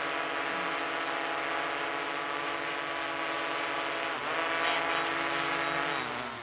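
DJI Air 3 quadcopter drone's motors and propellers whining steadily, the pitch dipping briefly about four seconds in and dropping near the end as the drone slows.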